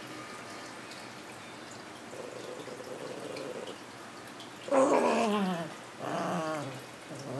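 Miniature Pinscher puppy growling while it tugs on a toy: a quieter growl about two seconds in, then two louder, wavering growls, the loudest near five seconds in falling in pitch, another about six seconds in.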